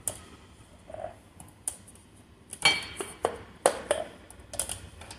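Cups and dishware being handled: a string of irregular clinks and knocks, the loudest near the middle.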